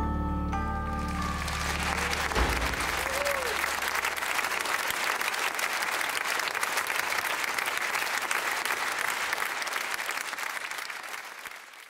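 Music ends about a second in and audience applause takes over, steady clapping that fades out near the end.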